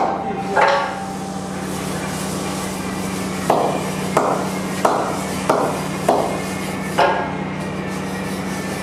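Cricket ball knocked against the face of a raw wooden cricket bat: one knock near the start, then six more at a steady pace about two-thirds of a second apart, each with a short hollow ring. A steady low hum runs underneath.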